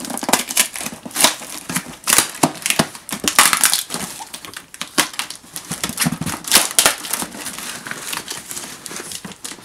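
A packaging box being handled and pulled open by hand: an irregular run of crackling, crunching and crinkling, with a few sharper crunches among them.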